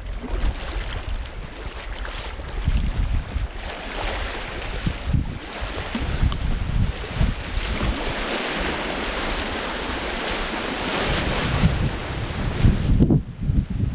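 Rushing whitewater of a river rapid, heard from the deck of a kayak. The hiss grows louder about midway as the boat enters the rapid. Low buffeting thumps on the microphone run throughout.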